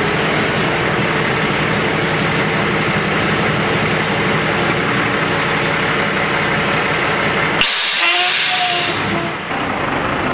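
Truck engine idling steadily, and about three-quarters through a sudden sharp hiss of released compressed air that fades away over about two seconds.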